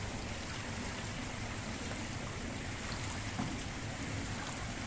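Indoor swimming-pool ambience: a steady wash of water noise as the pool water laps and splashes around sea kayaks and a swimmer beside them, with one faint knock about three and a half seconds in.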